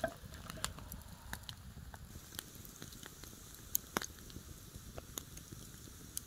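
Wood campfire of burning logs crackling, with irregular sharp pops, a few of them louder about four seconds in.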